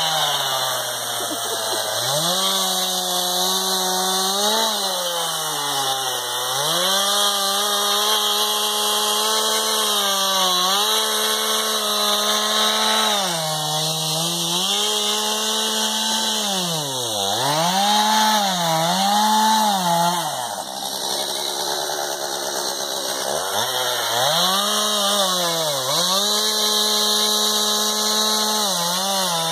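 Two-stroke chainsaw cutting through a felled tree trunk. The engine revs high and then drops in pitch over and over as the chain works through the wood. About two-thirds of the way through it falls back to idle for a couple of seconds, then revs up again.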